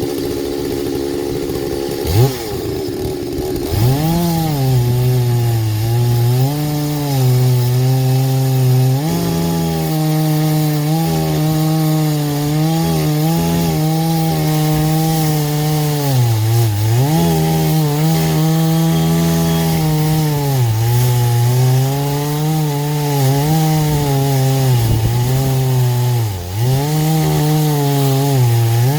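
Chainsaw on an Alaskan chainsaw mill ripping a hickory log lengthwise. The engine speeds up about two seconds in, then runs flat out in the cut, its pitch dipping and recovering again and again as it works through the wood.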